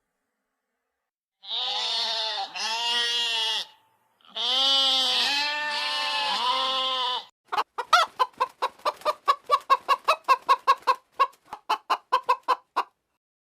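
Goat bleating several times in long, wavering calls, then a chicken clucking in a rapid run of short clucks, about three or four a second, for roughly five seconds.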